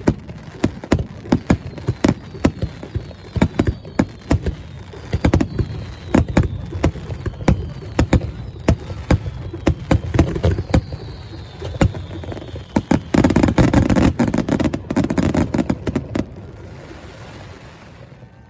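Fireworks finale: aerial shells bursting in quick succession, several bangs a second, with whistles that fall in pitch. About thirteen seconds in it thickens into a dense crackling barrage, then dies away to a hiss near the end.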